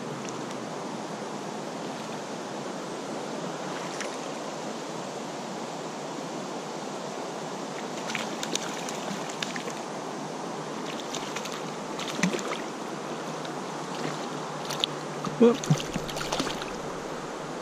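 Steady rushing of a small stream's flowing water. From about eight seconds in there are scattered short clicks and knocks, the loudest near the end.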